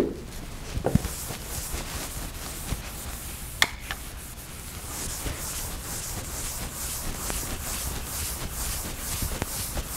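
A chalkboard eraser rubbed across a blackboard in repeated strokes, about three a second, making a dry scrubbing hiss. A sharp click about three and a half seconds in.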